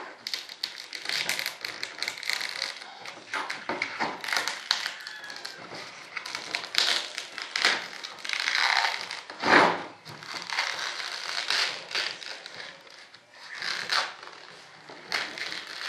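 Plastic vacuum-bagging film and release layers crinkling, crackling and tearing as they are peeled off a cured fiberglass-and-epoxy layup, with short snaps throughout and one louder crack a little past halfway.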